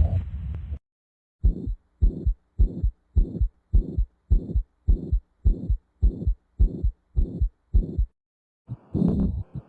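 Recorded heart sounds: a regular lub-dub heartbeat, about twelve quick double beats a little under two a second, with a faint high tick on each beat. It follows the tail of a different, noisier heart recording and leads into another one that starts near the end.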